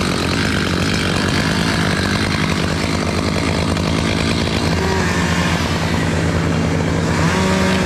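Chainsaw running steadily at high revs, cutting through elm wood.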